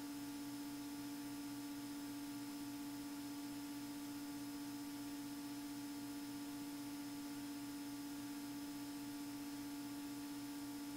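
Faint steady drone of a Beechcraft Bonanza A36's engine and propeller in flight, as picked up through the cockpit audio feed. It is one even humming tone with a soft, regular pulsing beneath it, unchanged throughout.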